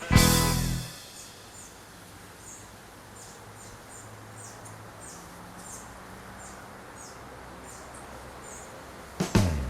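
A loud stroke of blues band music rings out and cuts off under a second in. Then comes outdoor ambience with a bird repeating short, high, falling chirps about once a second. The band music starts again near the end.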